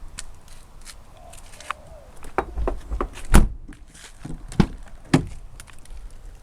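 Footsteps and a handful of separate knocks and thumps from a car's doors or boot being handled. The loudest comes about three and a half seconds in.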